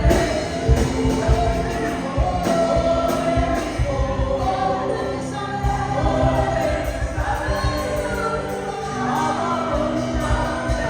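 Gospel worship music: a choir or congregation singing over a band with a steady drum beat.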